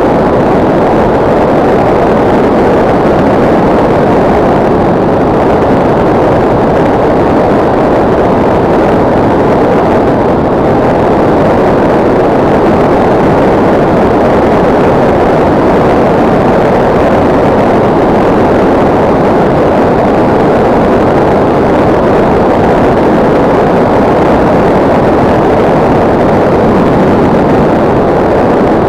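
Steady, loud rushing noise from a SkyCruise 2400 RC plane in flight, heard through its onboard camera. The noise is even and unbroken, without a clear pitched tone.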